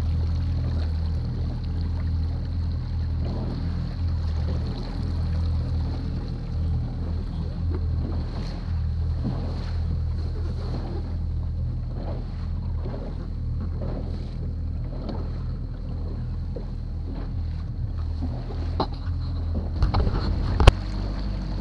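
Outboard motor of a rigid inflatable boat running steadily at slow trolling speed, with water splashing and slapping against the hull. A sharp knock sounds near the end.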